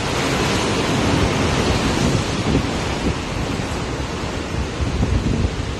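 Wind blowing over the microphone together with the rush of choppy sea water along a moving boat: a steady, full hiss with uneven low gusts.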